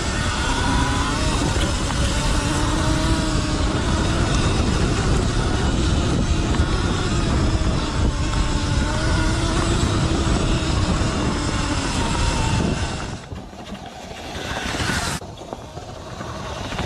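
Sur-Ron L1E electric dirt bike's motor whining, its pitch rising and falling with speed, over heavy wind and trail noise heard from the rider's onboard camera. About 13 seconds in, the sound cuts to a quieter scene with the bike's whine rising as it approaches.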